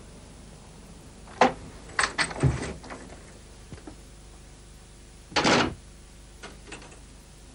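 A door being handled: a sharp knock about a second and a half in, a quick run of clunks and rattles around two to three seconds, and a heavier clunk a little after five seconds, followed by a few light clicks.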